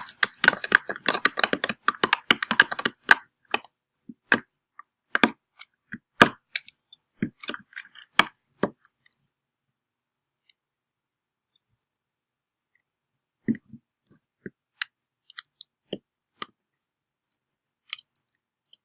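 Yeast and warm water being stirred in a small container: quick, dense clicking and tapping of the stirring utensil against the container for about three seconds, thinning to scattered clicks, then after a pause a few single knocks near the end.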